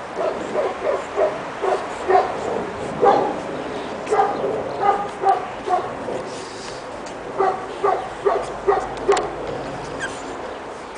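Pekingese puppies yapping: short, high-pitched yips, several a second, coming in bursts with short pauses.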